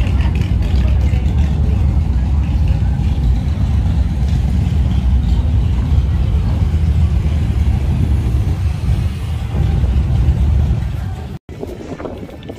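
Motorcycle engines running in a steady low rumble, with crowd voices mixed in. It cuts off abruptly about eleven seconds in, giving way to fainter street noise with wind on the microphone.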